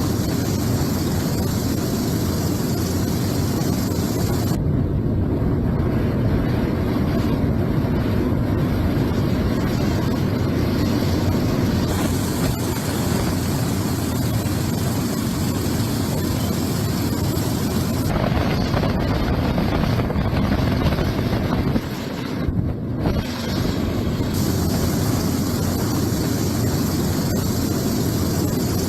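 Steady, loud rushing noise, heaviest in the low range, whose texture shifts abruptly a few times.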